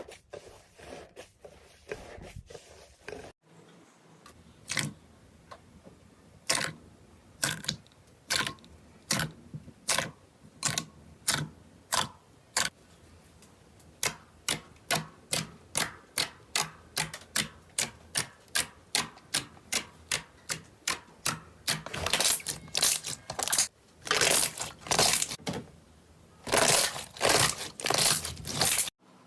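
Slime being pressed and poked by hand, giving a series of sharp clicking pops. They start at about one a second, quicken to about two a second, and turn into longer crackling bursts near the end.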